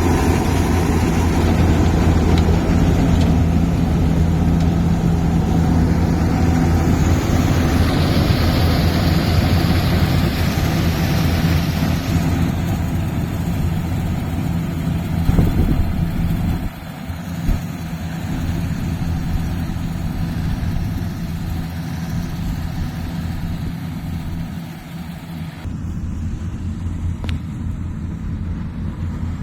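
Yanmar rice harvester's engine running steadily with an even low hum. The sound drops somewhat about halfway through and then carries on.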